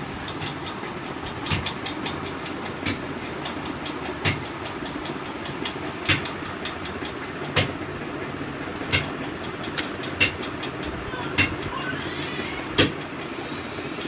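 Sharp knocks about every second and a half as hands work a ball of rice-flour dough against a plastic bowl, over a steady background hum.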